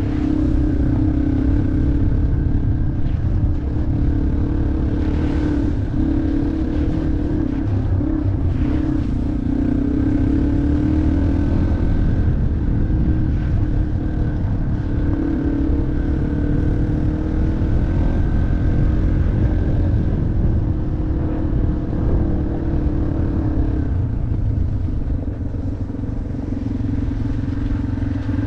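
Yamaha off-road motorcycle engine running steadily under way, its pitch wavering slightly up and down, over a dense low rumble.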